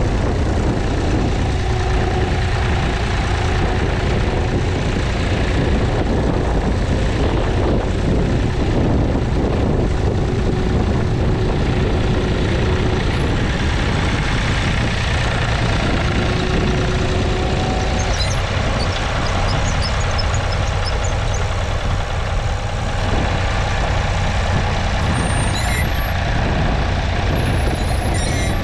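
David Brown 780's 2.7-litre three-cylinder diesel engine running steadily under load, pulling a two-furrow mounted plough through the soil.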